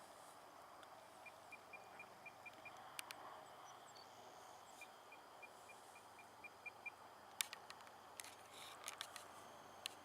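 Two runs of short, evenly spaced high electronic beeps, about four or five a second, from an RC transmitter's trim buttons being stepped, over faint outdoor background with a few sharp clicks.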